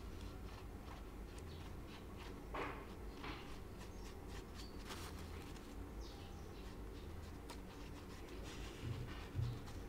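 Fingers spreading and smoothing wet plaster across a block: faint, irregular squishing and rubbing strokes over a steady low hum, with a couple of soft bumps near the end.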